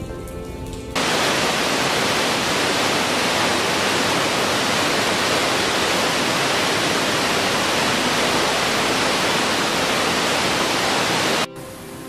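Waterfall water pouring down a sloping rock face: a loud, steady rush that starts abruptly about a second in and cuts off abruptly shortly before the end. Background music plays before and after it.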